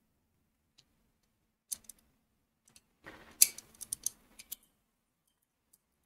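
Small clicks, taps and light rattles of hard plastic and circuit-board parts being handled during reassembly, a few lone ticks at first, then a busier cluster of clicks about three seconds in.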